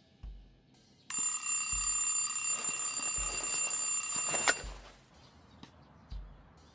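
Twin-bell mechanical alarm clock ringing steadily for about three and a half seconds, starting about a second in, then stopping abruptly with a click as a hand hits it.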